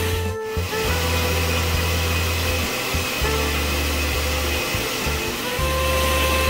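Background music with a low bass line in separate held notes, over a steady rushing noise.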